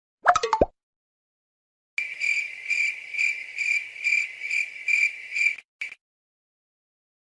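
Cricket chirping sound effect: a high, trilling chirp that pulses about twice a second for three and a half seconds, then one short last chirp. A brief springy sound effect comes in the first second.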